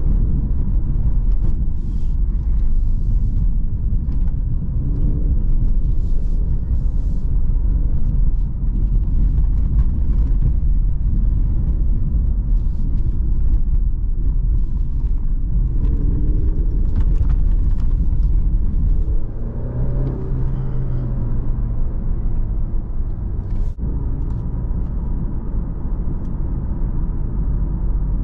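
Cabin sound of the 2022 Alfa Romeo Giulia Veloce's 2.0-litre turbocharged four-cylinder on the move: a steady low engine and road rumble, with the engine note rising and falling a couple of times past the middle as it pulls.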